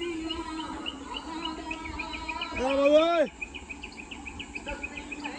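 Rapid, evenly repeated high chirping, about five chirps a second, over a faint background of voices. About halfway through, a louder drawn-out call of under a second rises slightly in pitch, then drops off and stops.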